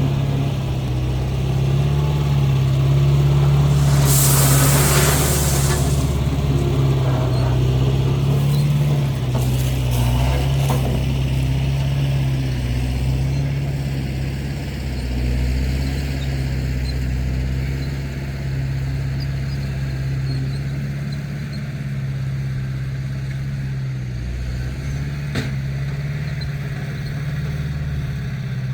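Engine of heavy earthmoving machinery running steadily under load, with a brief hiss about four seconds in.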